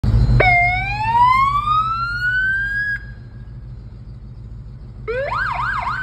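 Navistar fire truck's siren being tested: a wail rising steadily in pitch for about two and a half seconds, then cut off. About two seconds later it comes back as a fast yelp, sweeping up and down about three times a second. A steady low engine rumble runs underneath.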